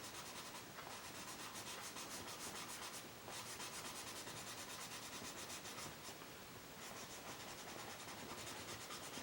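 Faint scratching of a Stabilo CarboThello pastel pencil worked back and forth over the textured vellum surface of Strathmore mixed media paper, in quick, even strokes broken by a few short pauses.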